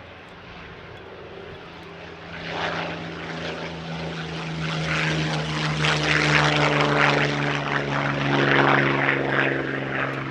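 North American P-51 Mustang's Merlin V12 piston engine in a flying display, growing louder from about two seconds in as it approaches, then loud and steady as it passes close.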